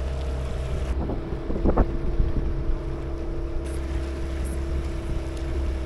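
A small motorboat's engine running steadily while under way, with wind on the microphone.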